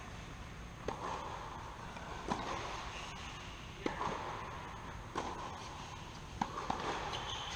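Tennis balls being struck and bouncing during a baseline rally on a hard court: a sharp pop about every second and a half, each with a short echo in the hall.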